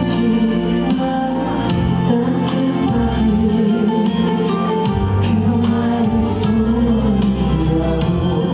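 A live concert song: a male singer's voice with vibrato over a band backing track of bass and drums, played loud through the PA.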